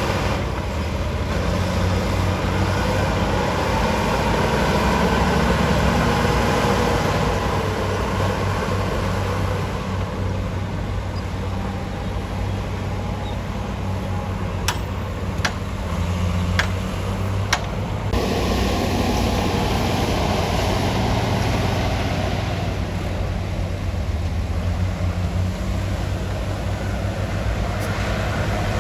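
Komatsu D53P bulldozer's diesel engine running steadily under load, with a few sharp metallic clanks a little past halfway. The engine sound shifts abruptly soon after.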